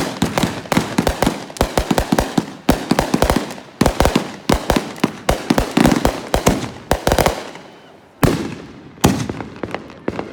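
Fireworks going off: a rapid string of sharp bangs, several a second, for about seven seconds. After a short pause come two louder single bangs about a second apart.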